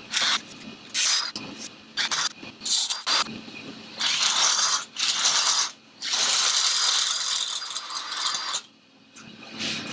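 Power drill drilling out the rivets of an Akrapovic titanium motorcycle silencer. It runs in several short bursts, then in two longer runs of a couple of seconds each.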